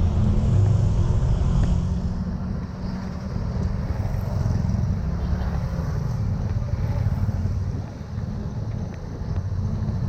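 Steady road-vehicle engine and road noise, a constant low rumble with no clear events.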